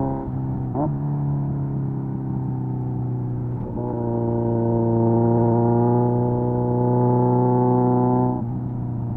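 Kawasaki Z900's 948 cc inline-four through an SC Project exhaust, running under steady throttle with an even tone. The note breaks briefly about a second in and again near four seconds, then drops in level near the end as the throttle is eased off.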